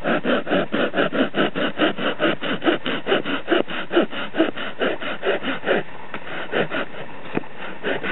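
Bahco Laplander 9-inch folding saw cutting through a dead branch in rapid, even back-and-forth strokes, about five a second, with a short pause about six seconds in before the sawing resumes.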